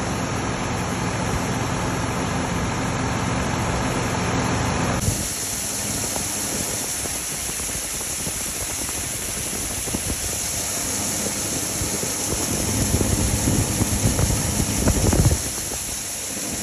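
Farm grain-handling machinery running steadily, engines and grain dryer equipment with a steady hiss over the top; the sound changes abruptly about five seconds in.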